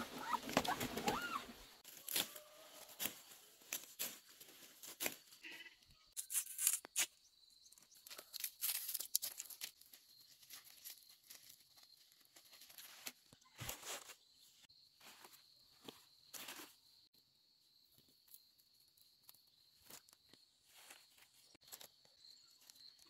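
Leafy vegetable stems being snapped and torn off by hand, an irregular scatter of crisp snaps and rustles of leaves.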